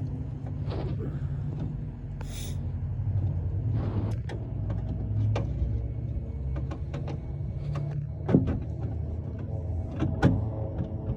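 Scattered clicks and knocks of parts being handled, with a few louder knocks, over a steady low hum.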